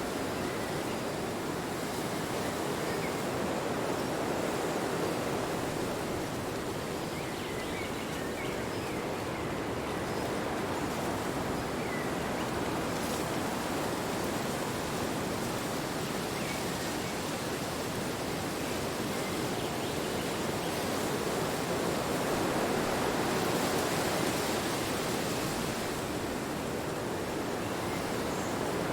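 Wind blowing steadily: a continuous rushing noise that swells and eases slowly, strongest a little before the end.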